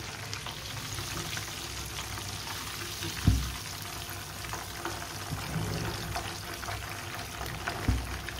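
Chicken tikka pieces sizzling and crackling as they deep-fry in hot ghee in a wok, with a wire skimmer working through the oil. Two dull knocks come from the skimmer, about three seconds in and near the end.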